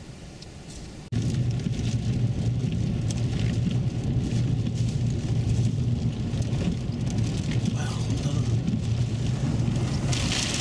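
Car driving on a dirt road: a steady low rumble of engine and tyres, with strong wind buffeting the vehicle. The rumble starts suddenly about a second in.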